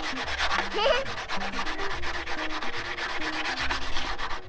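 Sandpaper rubbed back and forth by hand on the bare-metal cut end of a Royal Enfield Continental GT 650's rear frame, in quick, even strokes, taking off burrs left by an angle grinder.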